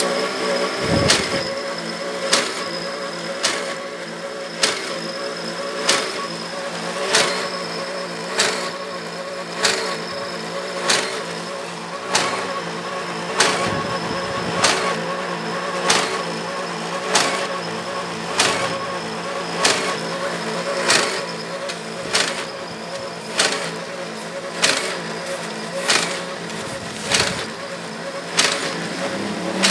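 Homemade invoice-perforating machine built from an Epson 1390 printer running, its small geared DC motors feeding paper past the perforating wheels with a steady whine. A sharp click comes about every second and a quarter.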